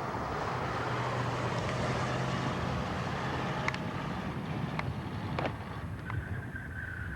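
A vehicle on the road: engine and road noise with wind on the microphone, and a few sharp clicks and rattles. About six seconds in, a steady high-pitched tone begins.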